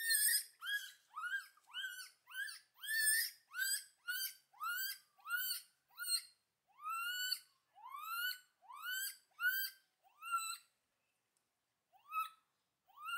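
Baby gibbon calling: a run of short notes that each rise in pitch, about two a second, with a pause of about a second near the end before two more.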